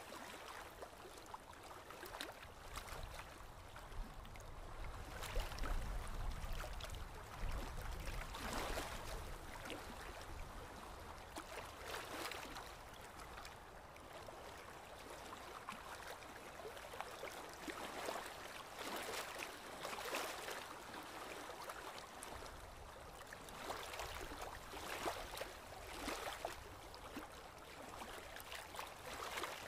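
Shallow water sloshing and splashing in irregular surges as hands scoop and grab small fish inside a fine mesh net, with a low rumble a few seconds in.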